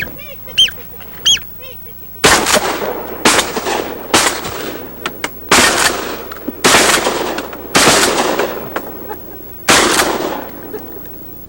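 A few high duck calls, then a volley of about seven shotgun blasts over roughly eight seconds as ducks are shot over the water, each shot echoing briefly.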